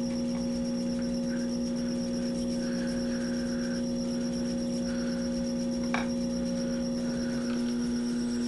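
Taig lathe running at 400 RPM with a 7/16-inch drill feeding into aluminium: a steady motor and belt-drive hum with a thin high whine above it, and a single sharp click about six seconds in.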